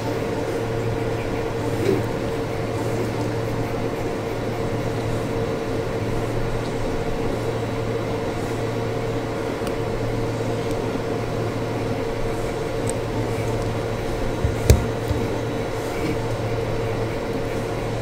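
Steady electrical hum with a constant low tone and a higher tone, like a fan or air conditioner. About fifteen seconds in comes one sharp click as a small hand crimper squeezes a JST-XH terminal onto the wire.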